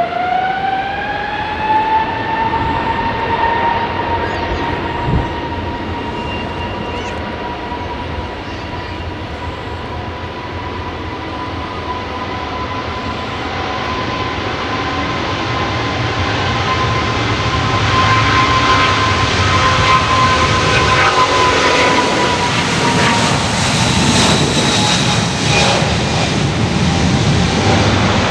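Jet airliner's turbofan engines: a whine rises in pitch over the first two seconds, then holds steady, while the engine roar grows louder through the second half.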